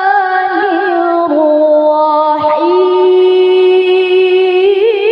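A woman reciting the Qur'an in a high, melodic voice into a handheld microphone, holding long ornamented notes with vibrato. Her voice stops briefly about two and a half seconds in and picks up on a new long held note.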